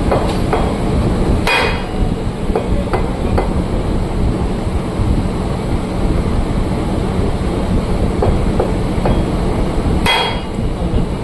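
Metal-on-metal clanking from hand tools during tractor rear-axle work, with two loud ringing hammer-like strikes, one about a second and a half in and one near the end, and lighter knocks in between, over a steady low mechanical rumble.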